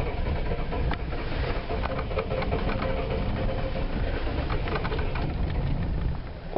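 Ford 7.3L IDI V8 diesel being cranked over by its starter in a steady rhythmic chug, which stops sharply near the end. It is a cold start on several bad glow plugs, and the engine does not catch.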